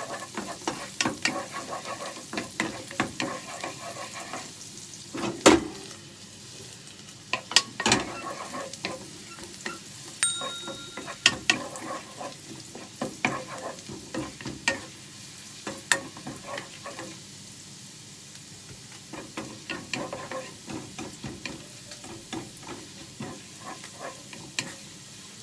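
Chopped garlic frying in melted margarine, sizzling in a frying pan while a wooden spatula stirs and scrapes, tapping the pan in irregular clicks. Two louder knocks of the spatula come about five and eight seconds in, and the sizzle is stronger in the first few seconds.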